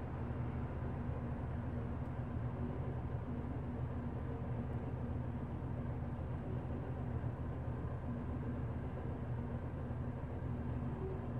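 Inside a city bus cabin: the bus's engine and running gear giving a steady low drone with a faint hum above it.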